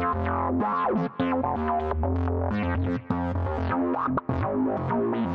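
Instrumental background music with a strong bass line.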